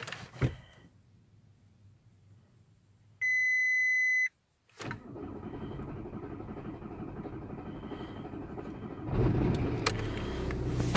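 Ignition of a VW Golf 4 1.9 TDI (ALH diesel): a few key clicks, then a one-second electronic chime from the instrument cluster. About five seconds in a steady low churning starts. About nine seconds in it swells as the diesel engine catches and settles to idle at about 1000 rpm.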